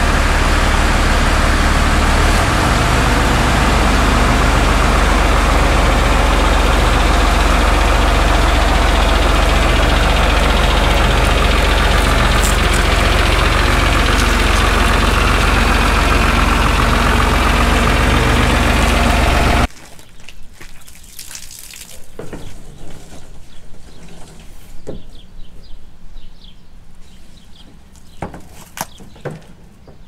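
John Deere 4240's six-cylinder diesel engine running steadily and loud, close by, as the tractor pulls the roller crimper over. The engine sound cuts off sharply about two-thirds of the way through, leaving a much quieter stretch with scattered light clicks.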